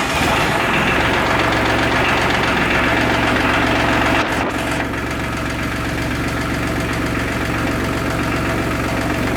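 New Holland TC33DA tractor's three-cylinder diesel engine running steadily just after starting, with a diesel clatter. Its sound eases a little about four seconds in.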